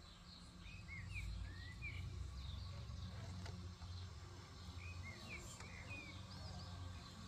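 Small birds chirping in two bunches of quick, swooping calls, over a low rumble that grows louder about a second in.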